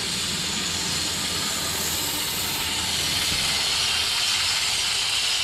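Small jewellery polishing machine running with a steady hiss as it polishes silver rings.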